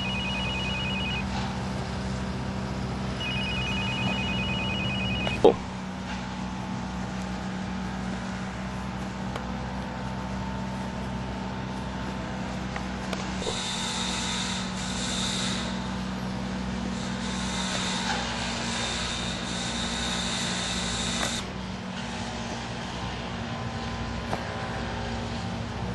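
An electronic beeper or alarm sounds two bursts of rapid pulsed beeps on two high tones, each about two seconds long, ending with a sharp click, over a steady low hum. Later a hiss rises over the hum for about eight seconds, then stops.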